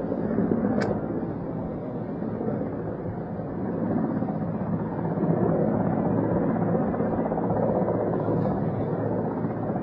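Military helicopter flying low overhead: a steady rotor and engine drone with a low throb, growing somewhat louder about halfway through.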